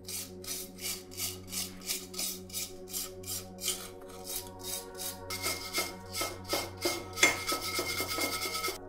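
Hand wire brush scrubbing rust and old dust off a corroded metal kettle in quick back-and-forth strokes, about three a second, faster and denser after about five seconds.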